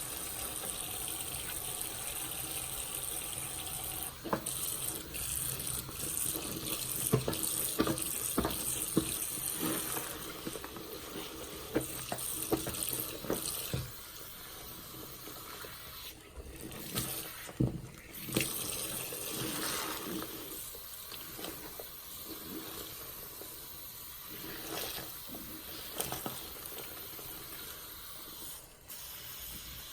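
A tap running into a sink while a soapy sponge is squeezed and rinsed under the stream, with wet squelches coming and going.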